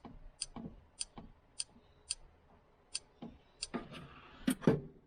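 A run of short, sharp ticks about every half second, typical of buttons being pressed on a key code machine to enter a key's code. About four seconds in come a few louder knocks and some handling noise.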